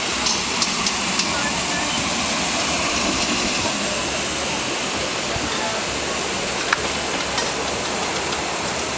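Steady hiss of a ride-on miniature live-steam locomotive running along the track, with a few sharp clicks.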